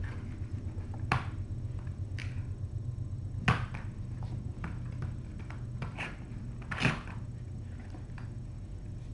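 Kittens at play close to the microphone: scattered light knocks and clicks of plastic cat toys and small bumps on the floor, the sharpest about three and a half seconds in, over a steady low hum.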